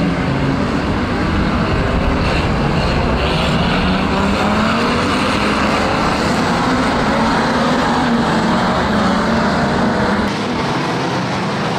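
Engines of a pack of pre-1975 banger racing cars running together on the rolling lap before the start: a steady, loud mixed drone with revs wavering up and down.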